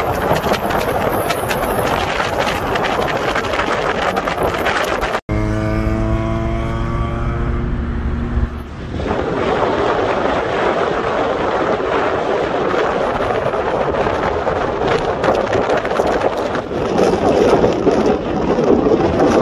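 Car driving at speed, with wind rushing over the microphone and road noise. About five seconds in the sound cuts out for a moment. A car engine is then heard revving, its pitch rising slowly for about three seconds, before the wind and road noise return.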